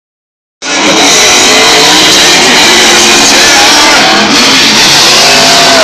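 Two drift cars' engines revving hard as they slide side by side through a turn, with crowd voices mixed in. It comes in abruptly about half a second in and stays very loud throughout.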